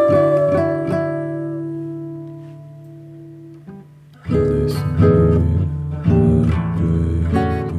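Acoustic guitar music: a held chord rings and fades away over about four seconds, then strummed chords start again.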